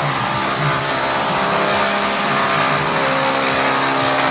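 An electric power tool's motor running steadily at an even pitch and loudness.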